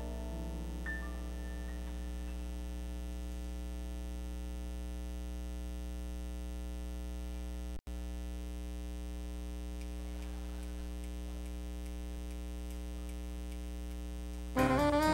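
Steady electrical mains hum on the recording, with a few faint held piano notes dying away in the first second or so and a brief dropout about halfway through. Near the end the jazz band comes in loudly.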